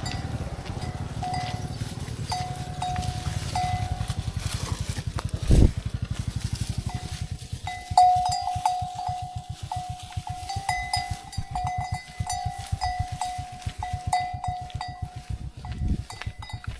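A livestock bell clanking over and over at an irregular pace, as if on a moving animal, more often in the second half. A fast low pulsing runs underneath, with a loud thump about five and a half seconds in.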